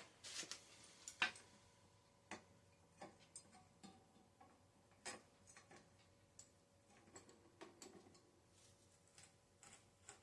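Scattered, irregular clicks and light metal knocks as a bicycle's front wheel is fitted into the fork, the loudest a little over a second in.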